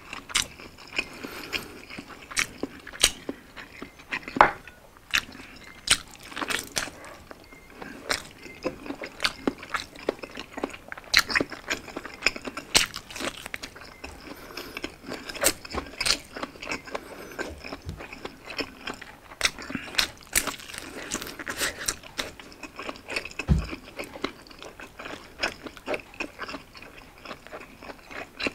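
Close-miked eating: biting and chewing Hungarian sausage, with many sharp, irregular wet mouth clicks and smacks.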